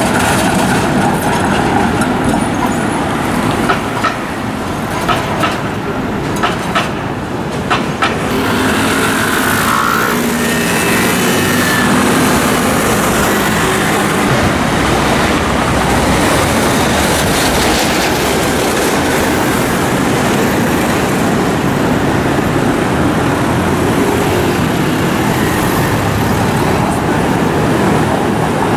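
City street traffic. A tram passes with a string of sharp clicks and knocks in the first several seconds. Then scooter and car engines run by steadily.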